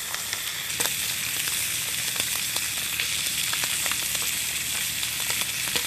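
Thick-cut bacon and eggs sizzling in a cast iron skillet: a steady frying hiss with scattered small pops.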